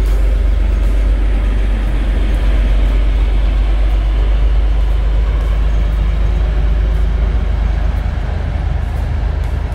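PKP SU45 diesel locomotive's Fiat 12-cylinder engine running under power with a loud, deep, steady drone as the locomotive passes close by. Near the end the drone eases and turns uneven as the passenger coaches roll past.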